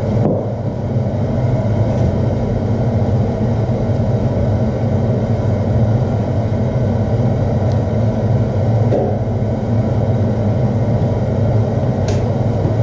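A blacksmith's forge running steadily, a continuous low drone with no hammer blows, while the stock heats.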